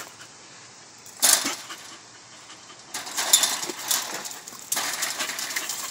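American Staffordshire terriers panting and moving at the chain-link fence: a short breathy burst about a second in, then a rougher noisy stretch from about three seconds on.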